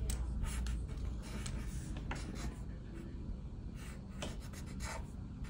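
Sharpie marker drawing on paper: short scratchy strokes, one after another at an uneven pace.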